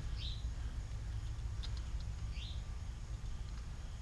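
Two short, high bird chirps about two seconds apart over a low steady background rumble, with a couple of faint clicks in between.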